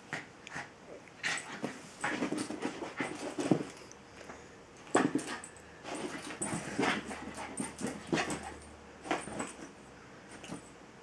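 Jack Russell terrier whimpering in short, irregular bursts amid scuffling, the excited whining of a dog soliciting play.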